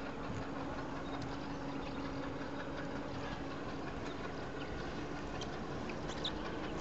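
Diesel locomotive engine running steadily: a low rumble with one steady hum over it.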